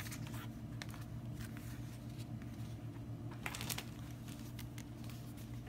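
Sheets of planner stickers and paper cards being handled and laid down by hand: faint rustles and light taps, a small cluster of them a little past halfway, over a steady low hum.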